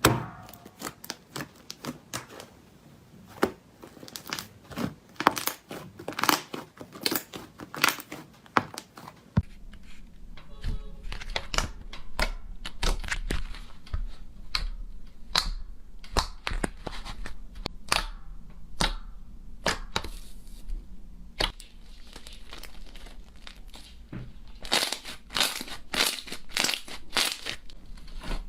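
Slime being squeezed, poked and stretched by hand, making many quick crackling pops and snaps. About nine seconds in the crackling turns denser, with a low hum under it.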